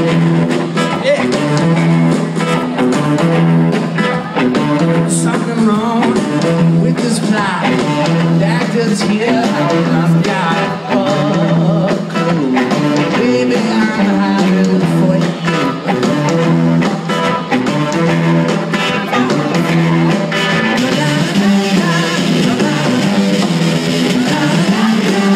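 Live blues-rock band performing: electric guitar and drums driving a steady, repeating riff, with sung vocals over it.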